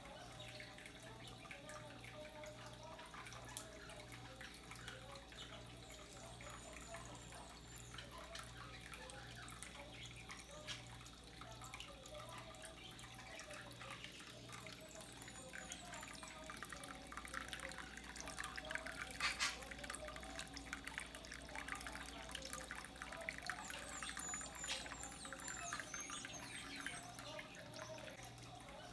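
Water trickling and dripping, with a low hum that pulses a little faster than once a second.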